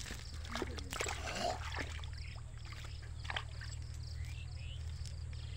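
Handling noise from a nylon cast net as small fish are worked out of its mesh: soft rustling with a few scattered clicks, over a steady low hum.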